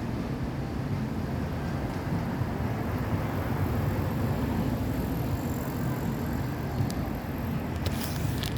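Steady low rumble of outdoor background noise, with a brief cluster of clicks near the end.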